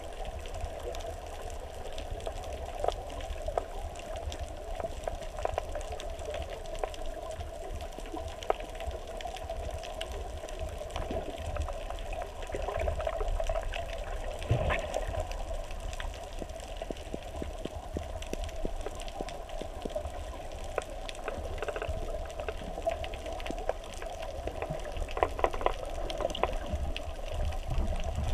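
Underwater sound heard through a GoPro Hero3+'s waterproof housing while snorkeling: a steady, muffled rush of water with scattered faint clicks and ticks. A louder splash-like disturbance comes right at the end.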